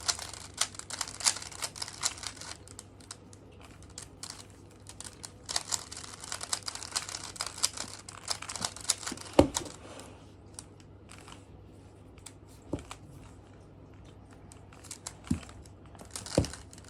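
Plastic 3x3 Rubik's cube being turned by hand: quick runs of clicking and rattling as the layers are twisted, thinning out into scattered clicks after about ten seconds, with a couple of sharper knocks.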